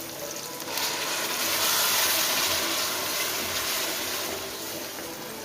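Hot oil in a cooking pot sizzling as tomato paste and onions go in: the hiss swells about a second in, then slowly dies down.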